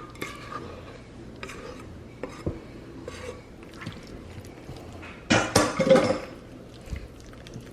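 A kitchen utensil scraping and clinking against a pot as thick, wet macaroni and cheese is scraped out, with a louder clatter for about a second just past halfway.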